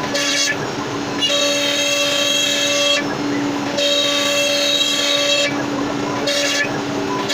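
Background music: sustained, chord-like tones over a steady held note, changing every second or two.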